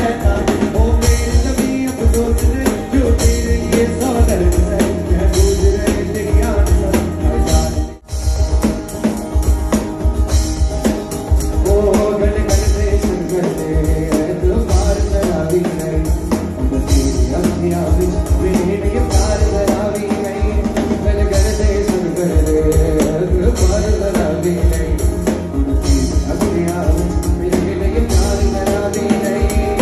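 Live band music: a man singing over strummed acoustic guitar and a drum kit keeping a steady beat, with a brief break about eight seconds in.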